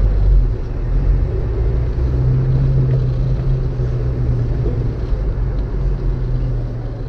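Engine and road noise heard inside a vehicle cab while driving and pulling a trailer: a steady low rumble that gets a little heavier about two seconds in.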